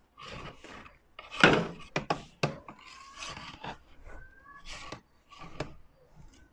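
Metal paddle scraping and stirring stiff ice cream against the inside of a metal sorbetes canister, in irregular rasping strokes, the loudest about a second and a half in. The hardened ice cream at the canister's edge is being worked round to soften it.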